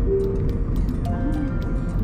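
Background music with a light, steady beat.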